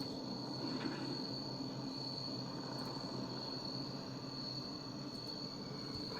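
Cricket chirping in one steady high-pitched trill over a low background hum.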